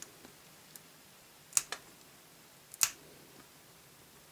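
Plastic nippers snipping brittle old plastic off an Action Man figure's wrist peg: two sharp snaps a little over a second apart, the second the loudest, with a few fainter clicks around them.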